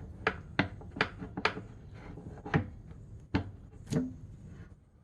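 Irregular sharp knocks and clicks as a cover is worked loose and taken off a lathe, spaced unevenly over a few seconds and dying away near the end.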